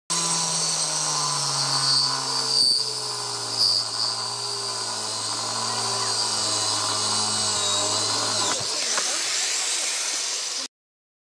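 Hilti angle grinder driving a diamond vacuum-brazed core bit, cutting dry into engineered stone; the motor's steady whine sags slightly in pitch under the load. About eight and a half seconds in the motor cuts out and winds down, and the sound stops sharply near the end.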